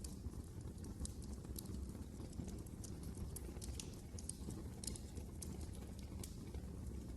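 Fire crackling in a fireplace: a steady low rumble of the flames with irregular sharp pops and crackles scattered through it.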